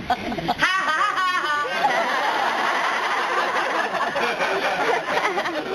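An audience laughing, with one voice breaking into a loud, high, repeated laugh about a second in, then many people laughing and murmuring together.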